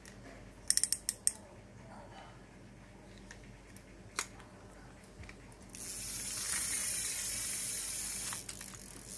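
Small size-1000 Ryobi spinning reel being handled: a quick run of sharp clicks about a second in and another click near four seconds. From about six seconds in the handle is cranked, and the turning rotor and gears make a steady, high-pitched whir.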